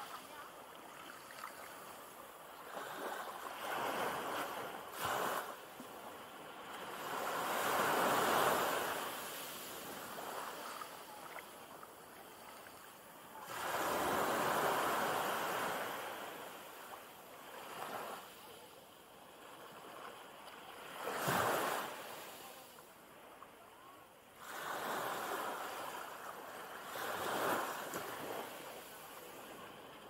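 Small waves breaking and washing up a sandy beach, swelling and fading every few seconds over a steady hiss of surf, with a sharper splash about 21 seconds in.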